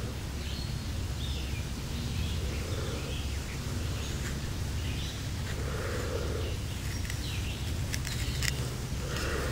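A pocket-knife blade cutting a notch into a dry wooden bow-drill hearth board, with soft scraping strokes every few seconds and a few light clicks near the end, over a steady low outdoor rumble.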